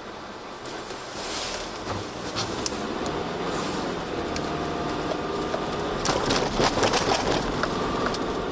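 A car pulling away and driving over a snow-covered railway level crossing, heard from inside the car: engine and tyre noise rise about a second in. About six seconds in comes a run of rattling knocks as the wheels cross the rails.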